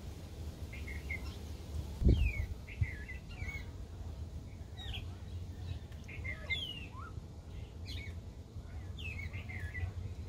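Small birds chirping: short, quick falling chirps repeated every second or so, over a steady low rumble. A single thump stands out about two seconds in.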